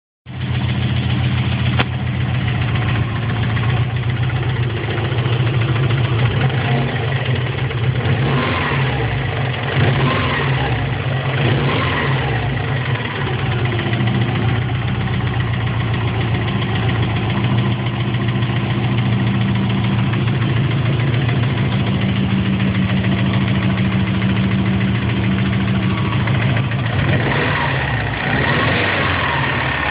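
Subaru Impreza's flat-four boxer engine running at idle with a knock in time with the engine, briefly revved a few times. The owner takes the knock for a failing bottom end near the left bank's rear piston.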